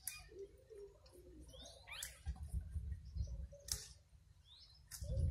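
Dry straw rustling and crackling as a dog noses and digs into a straw pile, with a few sharp crackles. A few short rising chirps come through too.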